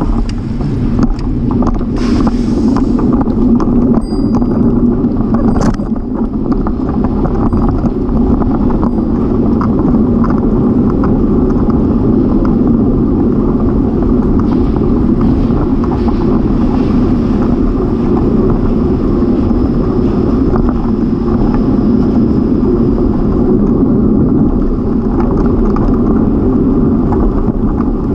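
Steady rumble of wind and tyre noise picked up by a camera on a moving bicycle, with a short hiss about two seconds in.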